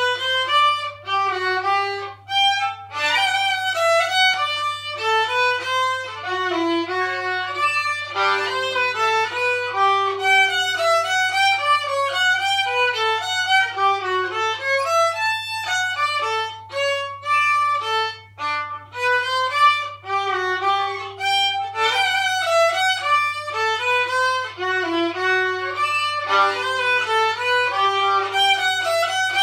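Solo violin played unaccompanied: a continuous melody of quickly changing notes in phrases with brief breaks.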